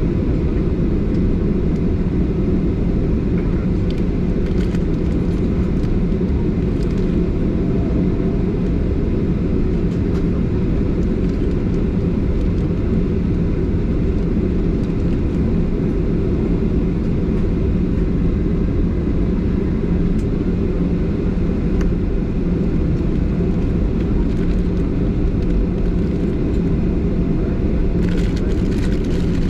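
Boeing 737-800 cabin noise from a window seat behind the wing: the CFM56-7B engines at idle on the ground, a steady low rumble with a steady hum through it.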